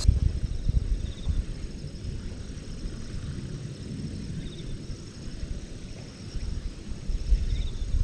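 Wind rumbling and buffeting on the microphone, with three faint, short high chirps spread through it.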